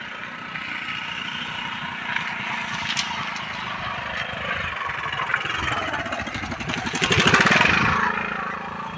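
An engine running, its pulsing growing louder to a peak about seven seconds in and then easing off, over a steady low hum.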